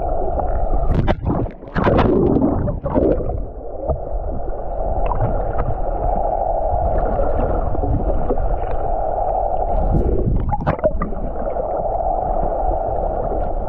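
Underwater sound picked up by a GoPro held just below the surface: a muffled, steady rush of water with a low rumble under it, broken by several sharp knocks and splashes, a cluster in the first couple of seconds and a few more around ten seconds in.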